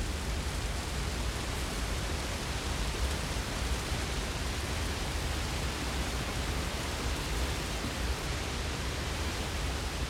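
A waterfall pouring down with a steady, even rush of water.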